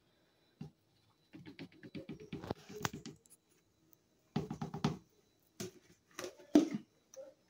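Rubber-gloved hands handling a plastic funnel in the neck of a plastic jug: irregular runs of rapid clicks and rattles, then a few separate knocks near the end, the sharpest as the funnel is lifted out.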